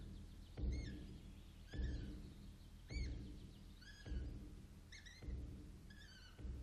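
Slow, evenly spaced low drum beats, a little under one a second, each followed by a short high chirping squeak.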